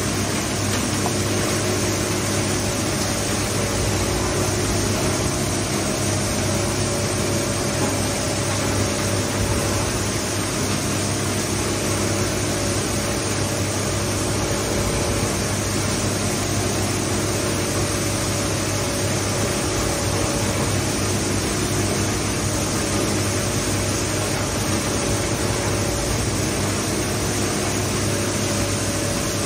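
Industrial shredder running empty with nothing in its hopper: a steady electric-motor hum with a low drone and several steady tones over an even hiss.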